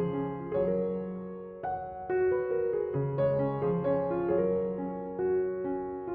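Background music: a gentle piano or electric-piano melody over sustained bass notes.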